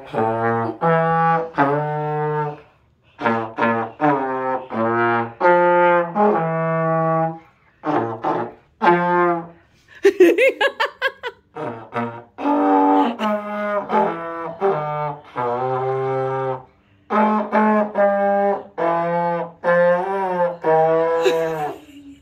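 A trombone playing a slow tune of separate held notes, with a few short pauses and a quicker wavering passage about ten seconds in.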